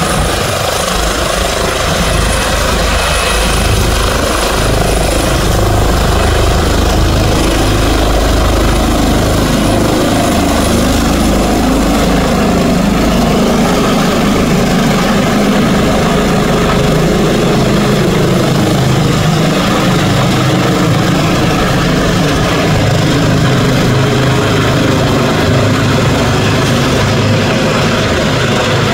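Airbus H145 twin-turbine helicopter lifting off and climbing directly overhead: loud, steady rotor and turbine noise, with a deep low rumble that eases after about ten seconds.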